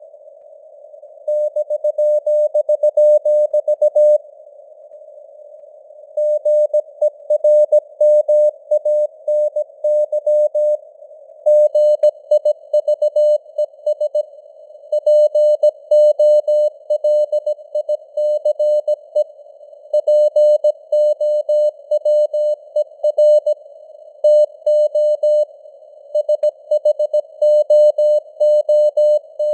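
Morse code sent at 17 words per minute: a single steady tone of about 600 Hz keyed on and off in dots and dashes, with short pauses between words. It sits over a narrow band of simulated radio static, and the signal strength varies (QSB).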